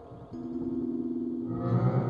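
Dark ambient horror soundtrack music of long held low notes. A new note comes in about a third of a second in, and a deeper, louder note swells in near the end.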